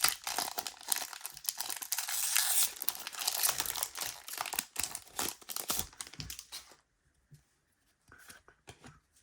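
A foil Pokémon TCG Lost Origin booster pack wrapper being torn open and crinkled by hand, a dense crackling that stops about two-thirds of the way in. A few faint ticks of card handling follow.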